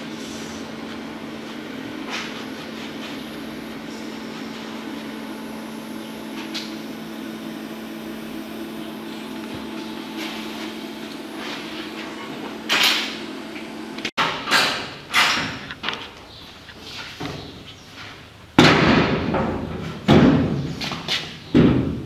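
A steady low hum with a few faint ticks, then after a cut a series of loud knocks and thuds on the steel cab of a Chevrolet C14 pickup at the door, several hard hits close together near the end, some ringing briefly.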